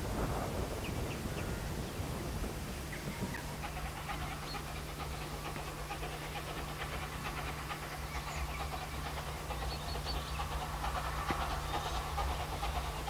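Narrow-gauge steam locomotive working along the line, its exhaust giving a fast, even run of chuffs that grows stronger in the second half as it approaches.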